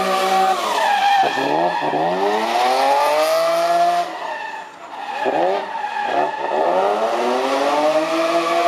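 BMW Z3 drift car's engine revving hard while the rear tyres squeal and spin through a smoky drift. The revs fall sharply about a second in, blip up and down, then climb. Around the middle they drop again and the sound goes briefly quieter, before the revs climb once more.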